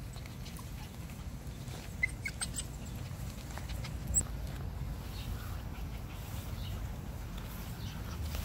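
Cockapoo puppies playing, with a few brief high squeaks about two seconds in and a sharp high chirp a couple of seconds later, over a steady low rumble of wind on the microphone.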